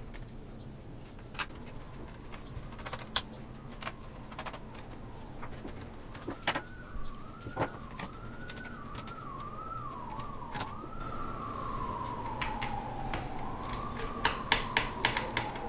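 Small sharp clicks of laptop screws and a screwdriver against the plastic bottom case, with a quick run of clicks near the end as screws are set down on the table. From about six seconds in, a siren wails, wavering fast at first, then rising and falling more slowly.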